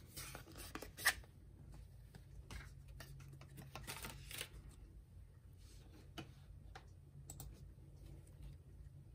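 Photocards and their paper sleeve being handled by hand: faint rustles, slides and light clicks of card against card, with one sharp tap about a second in.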